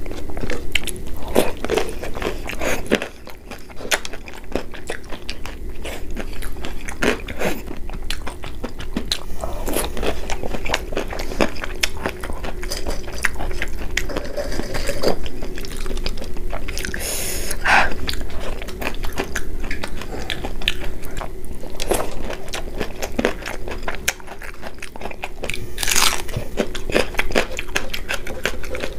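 Close-miked eating: crisp crunching bites and chewing of fried food, many sharp crackles in quick succession, with wet sounds of fingers mixing panta bhaat, rice soaked in water. A faint steady hum runs underneath.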